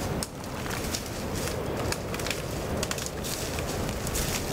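Footsteps crunching through dry leaf litter and dead grass, with sharp crackles of small twigs breaking underfoot.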